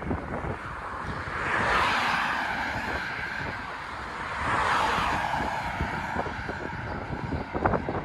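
Two cars passing on the road one after the other, their tyre and engine noise swelling and fading about two seconds in and again about five seconds in, with wind buffeting the microphone.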